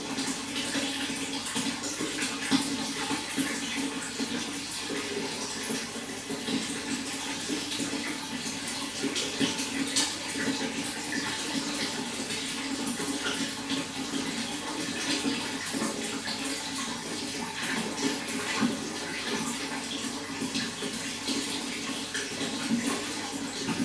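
Running water pouring and splashing steadily, with a constant rush and many small splashes.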